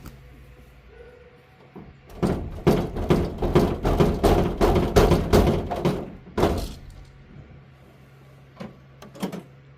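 Chickens flapping their wings and thumping down as they fly out of the coop: a quick run of flaps and landing thuds for about four and a half seconds, then two more near the end.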